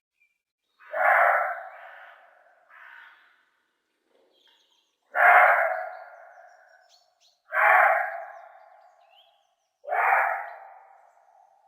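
Fallow deer barking: four loud, abrupt barks spaced about two to four seconds apart, each trailing off over about a second, with a fainter call soon after the first.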